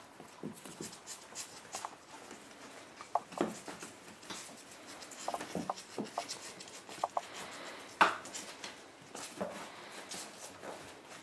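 Month-old puppies' claws scratching and scrabbling on a cardboard box wall and a wooden floor: scattered small scratches and taps, the sharpest about eight seconds in.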